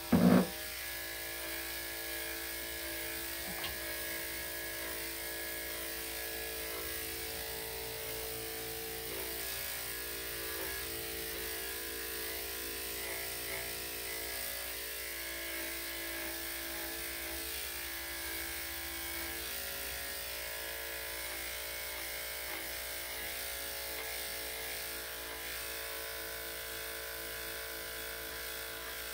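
Corded electric dog grooming clippers running with a steady buzz as they shave a small terrier's coat. A single brief, loud sound comes right at the start.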